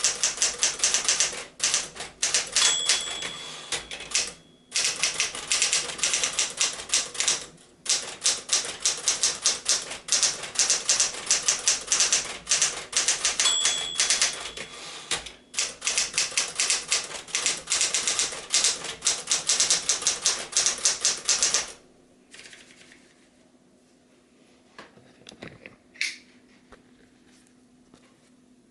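1965 Smith-Corona Galaxie II manual typewriter being typed on, a fast run of key strikes. Twice the line-end bell rings and the typing pauses briefly, as at a carriage return. The typing stops about three-quarters of the way through, leaving only a few faint clicks.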